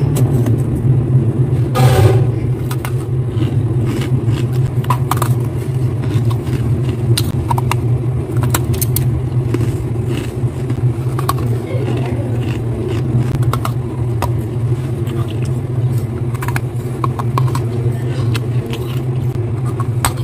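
Freezer frost crunching and crackling as a hand digs into it and breaks off lumps: scattered crisp crunches and scrapes. Under them runs a loud, steady low hum.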